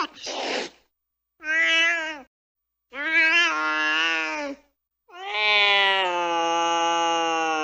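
An angry cat's pitched yowls. A brief hiss comes at the start, then three drawn-out wailing calls with digital silence between them, each longer than the last; the final one is held steady for about three seconds.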